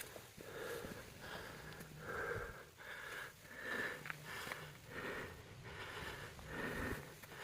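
A trail runner's hard, rhythmic breathing, about ten breaths in a steady cadence of one every three-quarters of a second.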